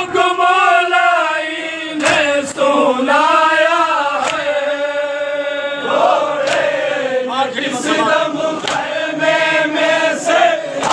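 A group of men chanting a noha, a Shia lament, in unison, with long held, wavering notes.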